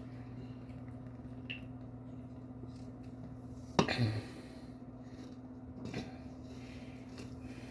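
Quiet room tone with a steady low hum, broken by a sudden knock about four seconds in and a softer one near six seconds.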